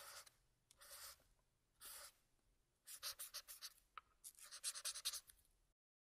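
Faint marker pen writing on a surface, a sound-effect sample. A few single scratchy strokes about a second apart, then two runs of quicker strokes in the second half.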